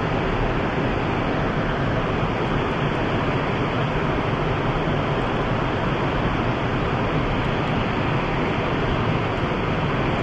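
River water rushing steadily over rocks in a riffle, an even, unbroken rush.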